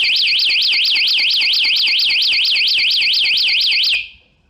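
Smart Bluetooth bike lock's built-in anti-theft alarm blaring: a loud, high electronic tone warbling up and down about six times a second, set off by moving the lock while the owner's phone is out of Bluetooth range. It cuts off suddenly about four seconds in, the lock's sign that it has reconnected to the owner's phone.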